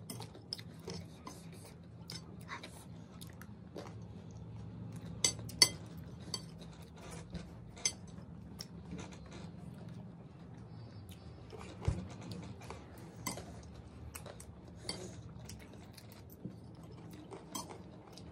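Metal spoons scraping and clinking on ceramic plates while scooping a dry puffed-rice snack (chatpate), in scattered irregular clicks, with a steady low hum underneath.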